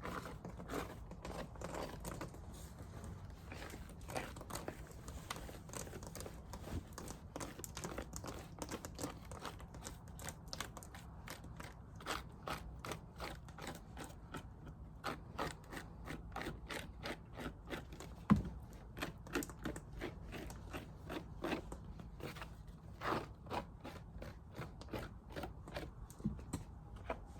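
Bee brush sweeping dead bees off a comb frame from a dead-out hive: a long run of light, crunchy scrapes and clicks, several a second, with one sharper knock about eighteen seconds in.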